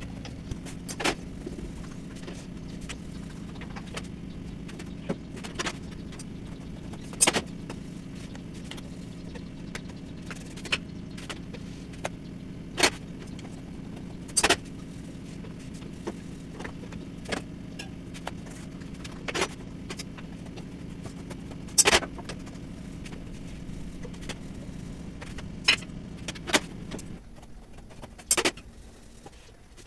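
Sharp metallic clicks and clinks of metal tongs and steel utensils against a flat griddle pan and plates, coming irregularly every second or few seconds. Under them is a steady low hum that stops near the end.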